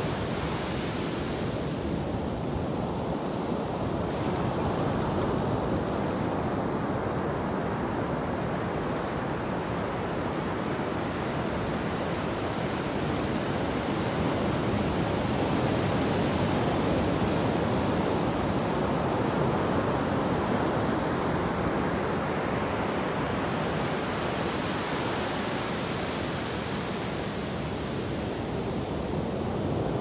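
Ocean surf breaking and washing up a sandy beach: a steady rushing noise that swells gently and eases. The hiss of foam washing over the sand grows brighter near the start and again about three-quarters of the way through.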